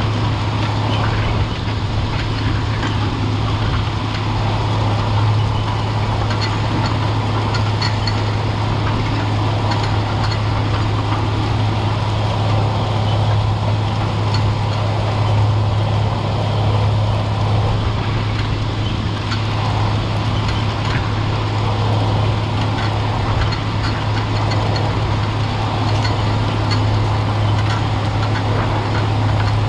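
White 4-270 four-wheel-drive tractor's Caterpillar 3208 V8 diesel running steadily under load while pulling a strip-till bar, a constant low hum with no change in engine speed.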